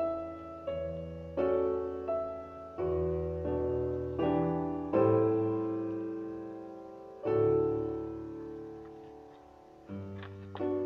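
Solo classical piano music: slow chords and single notes, each struck and left to die away, with a long held chord near the middle.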